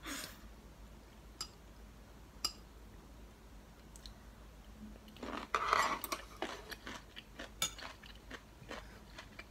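Metal chopsticks and a spoon clicking against a ceramic soup bowl a few times, with a stretch of chewing and eating sounds a little past the middle.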